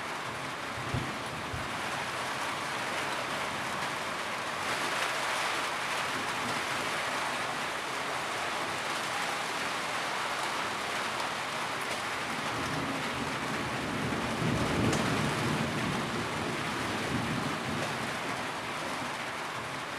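Steady rain falling, an even hiss of many drops, with a low rumble swelling and fading about two-thirds of the way through.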